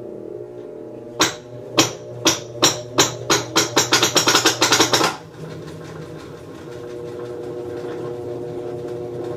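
Whirlpool top-load washing machine running with a motor hum, and a series of loud clicks that come faster and faster, from about one every half second to several a second, then stop about five seconds in while the hum carries on. This is the machine's faulty clicking noise, which the owner hears in the rinse cycle.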